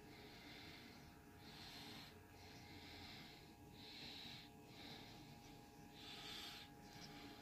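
Faint breathing through the nose close to the microphone: soft hissing puffs, roughly one a second, over a low steady hum.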